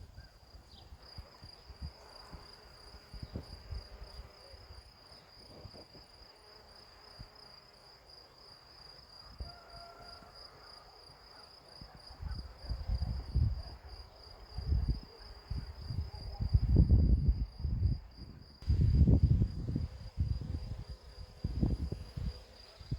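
A cricket trilling steadily, a high, evenly pulsed tone that does not stop. From about halfway through, loud low rumbling bursts come and go over it.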